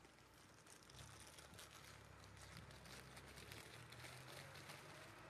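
Near silence: faint outdoor background noise, with a faint low hum through the middle and a few faint clicks.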